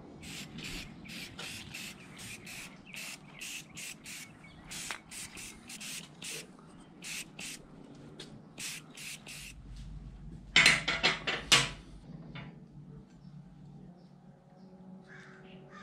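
Aerosol spray-paint can sprayed in many short hissing bursts, about two a second, coating the steel radio bracket. About ten and a half seconds in comes a much louder, harsher burst lasting about a second.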